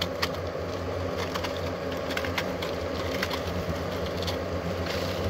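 A swarm of hornets (vò vẽ) buzzing around their opened paper nest in a steady low drone, with light scattered crackles and ticks as the papery comb tiers are handled and twisted off.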